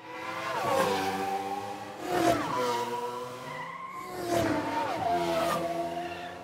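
Race car engine sound effect passing by again and again, about every two seconds, its pitch dropping with each pass as if lapping a track.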